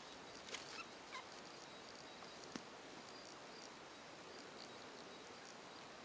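Budgerigars chirping faintly over a steady hiss, with a few short falling calls in the first second or so and a single sharp click about two and a half seconds in.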